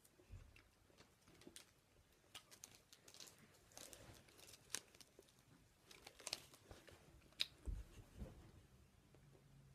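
Faint crinkling and rustling of a chocolate bar wrapper in short scattered bursts, with quiet chewing, and a couple of dull thumps near the end.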